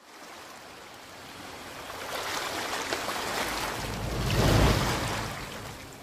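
Ocean surf: a rushing wash of waves that builds to a loud surge about four and a half seconds in, with a deep rumble at its peak, then eases off.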